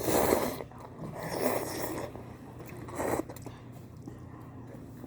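Close-up eating sounds over cup noodles: three short noisy bursts, the loudest right at the start and a brief one about three seconds in.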